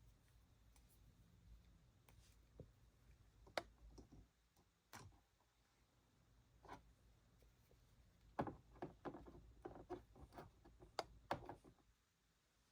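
Faint scattered clicks and taps of small plastic toy pieces being handled: a few single clicks, then a quick run of them for about three seconds near the end.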